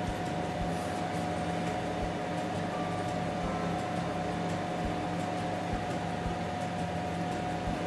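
Steady machine hum with a constant mid-pitched tone and a few faint low knocks.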